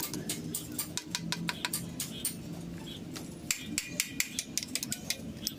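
Steel hand tool clicking and scraping against the metal hub and spindle nut of a Bedford truck's front wheel, in irregular light metallic knocks that come faster and sharper a little over halfway through.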